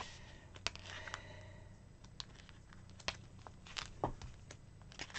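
Pages of a paper sticker book being turned and handled: scattered faint crisp clicks and rustles of sticker sheets.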